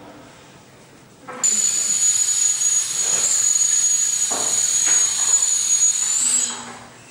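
Air rushing out of a balloon through the bottle-cap nozzle of a CD balloon hovercraft: a loud hiss with a steady high whistle. It starts about a second and a half in and runs about five seconds, stopping near the end as the balloon empties.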